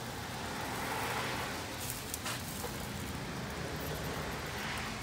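Steady sizzling hiss from an open charcoal drum smoker as barbecue sauce and drippings hit the hot coals, with a couple of faint clicks about two seconds in.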